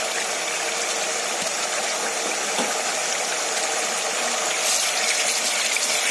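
Onion-and-yogurt masala frying in oil in a pan, a steady sizzle as it is fried down. About four and a half seconds in, a wooden spatula starts stirring it and the sizzle grows a little louder and brighter.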